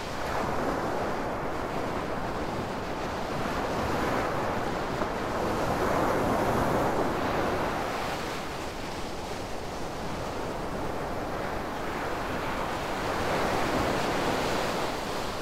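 Sea waves breaking and washing on a sandy shore, the surf swelling and fading every few seconds, with wind buffeting the microphone as a low rumble.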